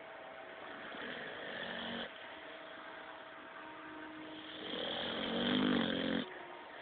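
A boy snoring: two snores, the first about a second in, the second louder and longer near the end with a low buzzing tone, each cutting off sharply.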